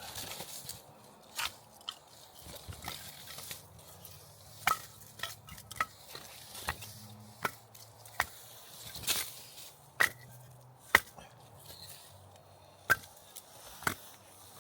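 A series of irregular sharp knocks and clicks, about a dozen, some much louder than the others.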